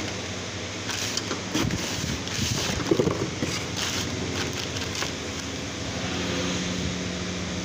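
A clear plastic bag crinkling in irregular bursts as hands handle the packaged drive belt inside it, over a steady background hiss and low hum.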